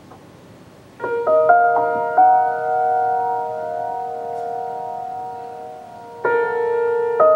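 Grand piano played slowly. After about a second of quiet, notes enter one after another and build into a ringing chord that slowly dies away. A new chord is struck about six seconds in, and another near the end.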